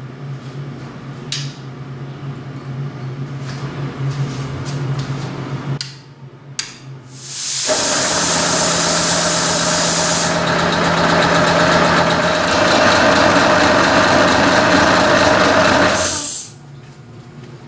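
Belt-driven piston air compressor starting up about seven seconds in, running loud and steady with a hissing edge and a fast pulsing beat, then shutting off abruptly about nine seconds later. Before it starts there is only a low steady hum.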